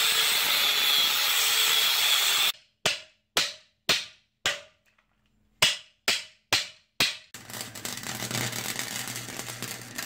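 An angle grinder grinds off the spot welds on a steel crossmember tube for about two and a half seconds. Then come eight sharp hammer blows on the crossmember as the tube is knocked along, each ringing briefly. The last part is a welder crackling with a low hum as the tube is tack welded back in place.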